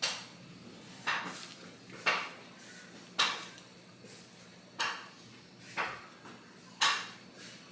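A piece of chicken being pressed and patted into breadcrumbs in a glass baking dish: a series of short soft taps, about one a second.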